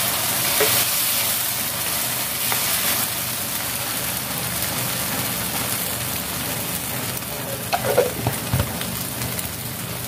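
Okra frying in oil with mustard-and-poppy-seed paste in a steel kadai, sizzling steadily, stirred with a wooden spatula in the first seconds.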